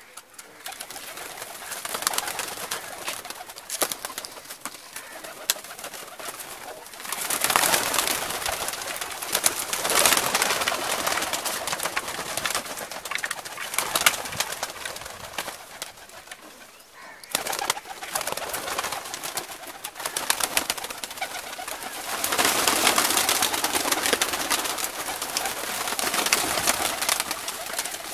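Domestic pigeons in a loft flapping and fluttering their wings, with some cooing; the flutter comes in louder and softer spells and breaks off suddenly about two-thirds of the way through before carrying on.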